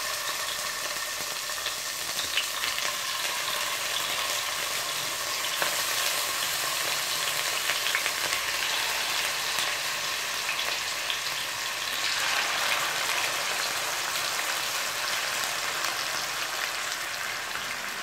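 Yogurt-marinated chicken pieces sizzling and crackling in hot oil in a kadhai. The sizzle swells about six seconds in and again about twelve seconds in as more pieces go into the oil.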